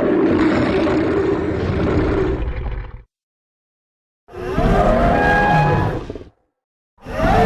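Triceratops roar sound effects: a long, low, growling roar, then after a short silence a second, shorter roar, and a third beginning near the end, each cut off cleanly into silence.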